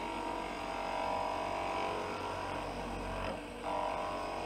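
Wood lathe running with a steady hum while a gouge cuts the spinning wood, a steady cutting whine that fades out briefly after about two and a half seconds and comes back near the end.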